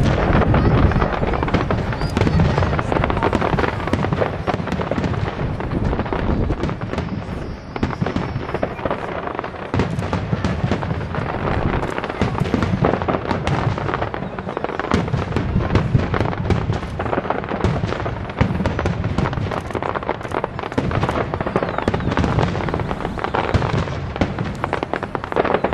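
Fireworks display: a dense, unbroken barrage of bangs and crackling shells going off in quick succession.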